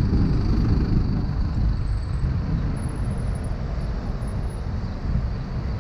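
Low rumble of wind buffeting a bicycle-mounted action camera's microphone while riding, mixed with the noise of city traffic passing close by.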